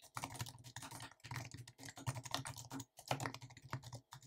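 Fast typing on a computer keyboard, a dense run of keystroke clicks broken by short pauses about a second in and again just before three seconds.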